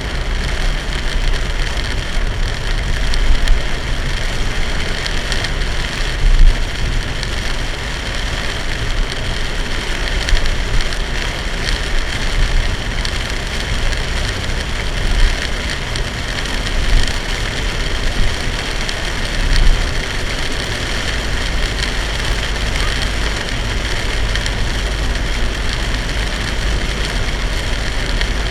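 Heavy rain beating on a car driving on an expressway, over a steady rumble of tyres and road noise, with a few brief louder swells.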